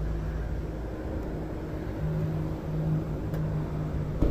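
2013 Chevrolet Equinox's 2.4 L four-cylinder engine running at a steady idle with a low hum, and a single short click near the end.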